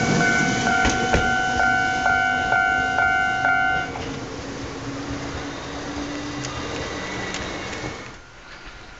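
Japanese level-crossing alarm ringing with about two strikes a second as the last car of a Ryutetsu 5000 series electric train rumbles over the crossing. The alarm stops about four seconds in, leaving the train's fading rumble and street noise.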